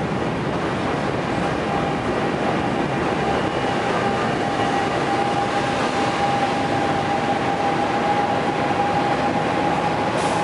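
New Jersey Transit Arrow III electric multiple-unit train pulling out: the steady running noise of the cars rolling past, with a steady whine that comes in about a second and a half in.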